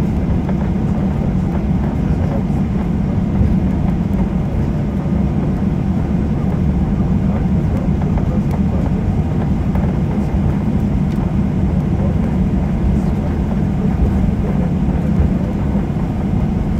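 Cabin noise inside a Ryanair Boeing 737 taxiing: a steady low rumble from the jet engines at taxi power and the wheels rolling over the taxiway.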